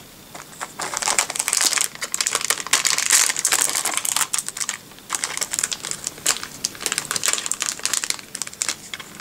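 Clear plastic wrapper crinkling and crackling in irregular bursts as a photo-printer ink cassette is taken out of its bag.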